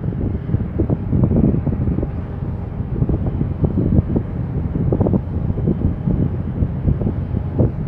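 Wind buffeting the microphone: a low rumble that flares up in uneven gusts.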